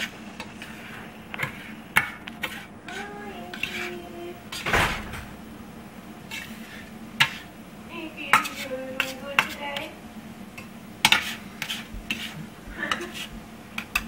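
A spatula scraping and knocking against a stainless steel frying pan as scrambled eggs are stirred and turned. The strokes come as irregular clinks and scrapes, with the sharpest knocks about two, seven and eleven seconds in.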